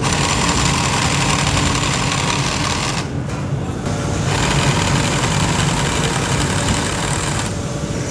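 Industrial sewing machine running as it stitches leather boot upper pieces, over a steady motor hum. The stitching stops briefly about three seconds in.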